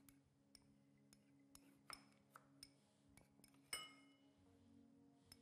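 Faint knife knocks on a plastic cutting board as eggplant is sliced into wedges: about ten irregular taps, with one ringing clink a little before the end.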